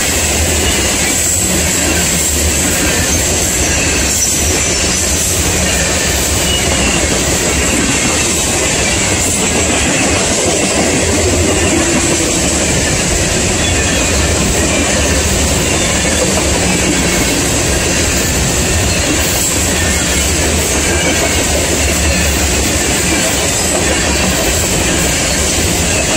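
Freight train of covered hopper cars rolling past at speed: a steady, loud rumble and clatter of steel wheels on the rail.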